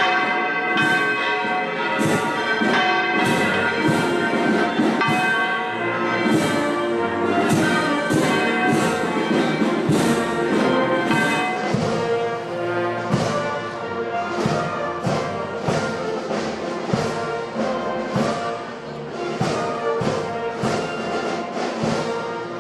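Bells ringing in a peal of repeated strikes, mixed with band music.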